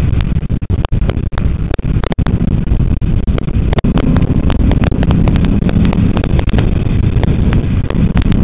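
Heavy wind buffeting on a front-mounted camera's microphone at track speed, over the low rumble of a Ford Mustang GT's V8, with frequent sharp clicks. The engine note grows a little stronger about halfway through.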